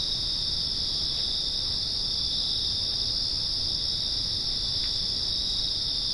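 Steady insect chorus in woodland: a continuous high-pitched drone that does not change.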